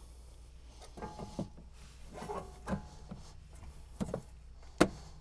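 A few light metal knocks and scrapes as a Bilstein PSS-10 coil-over strut's lower tube is worked into the strut clamp on the hub, with one brief metallic ring partway through and the sharpest knock near the end.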